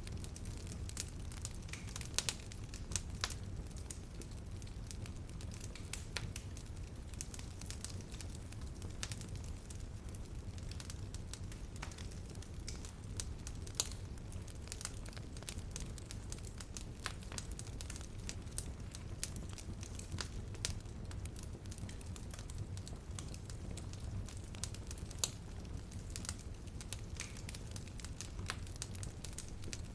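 Wood fire crackling in a fireplace: a steady low rumble of the flames with irregular sharp pops and snaps of burning wood.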